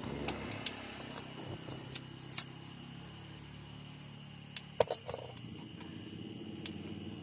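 Scattered sharp clicks and snips of hand tools working on car wiring, the loudest about five seconds in, over a steady low hum.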